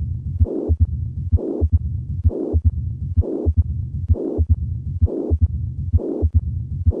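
Heart sounds of combined mitral stenosis and mitral regurgitation: with each beat, a little faster than one a second, a low diastolic rumble of the stenosis and a higher, hissing systolic murmur of the regurgitation, set among the sharp valve sounds.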